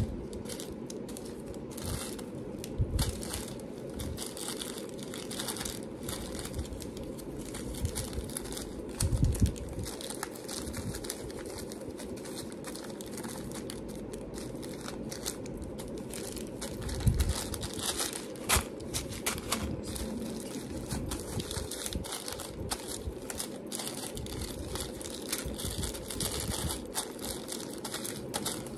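Packaging crinkling as jewelry findings are handled and sorted, with scattered light clicks and a few dull knocks, the loudest about 9 seconds in.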